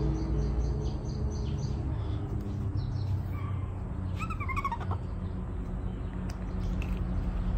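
A short, wavering, high chirping call about four seconds in, with a fainter brief call near the end, over a steady low background rumble.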